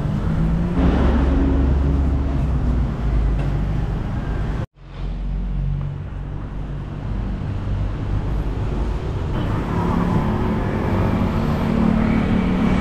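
Street traffic noise: motor vehicles' engines running and passing in a steady low rumble, with a sudden brief dropout about five seconds in.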